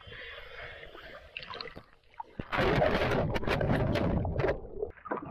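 Water sloshing around a camera at the sea surface, then from about two and a half seconds in a loud rush of splashing and bubbling as the camera goes under with a scuba diver, lasting a couple of seconds.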